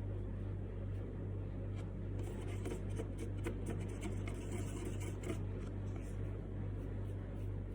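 Faint scratching strokes of drawing on a small wooden fridge magnet, clustered from about two seconds in to past the middle, over a steady low hum.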